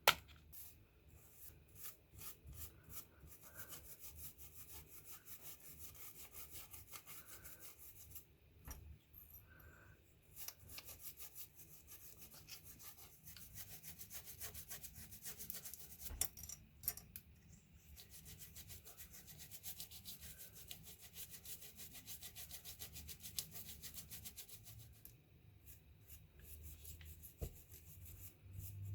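Rapid, repeated rubbing strokes of hand work on the old razor's metal parts, pausing briefly twice, with a sharp knock at the very start.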